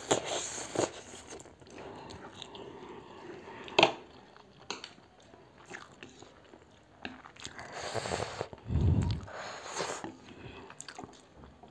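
Slurping and chewing of spicy instant noodles eaten with chopsticks, in irregular wet smacks and sucks. A single sharp click about four seconds in is the loudest sound.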